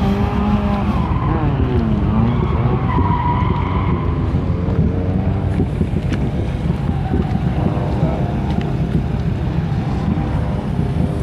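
Drift cars running, engines revving up and down, with tyre squeal.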